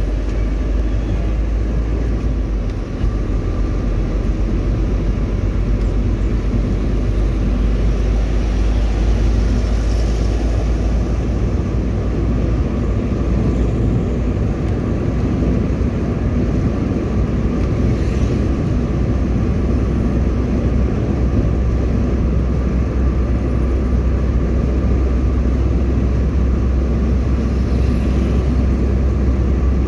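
Steady rumble of a moving vehicle's engine and tyres on the road, heard from inside the cabin while cruising along a highway, with a faint steady whine running through it.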